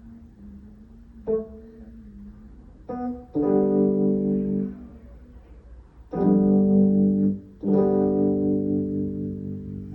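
Rehearsal playing on guitar and keyboard: a few chords struck and held for a second or more each, with short quieter gaps between them.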